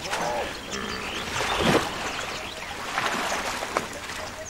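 Water splashing and sloshing as a hippopotamus moves through floating water plants, with a louder splash about a second and a half in. Short bird calls sound over it.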